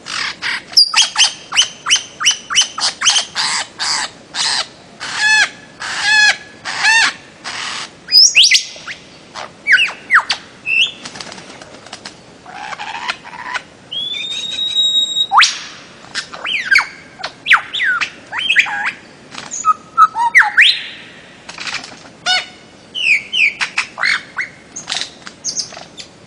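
Bird-of-paradise calling in a fast, varied stream: runs of short repeated notes, then rising and falling whistled notes, with one longer held whistle about halfway through.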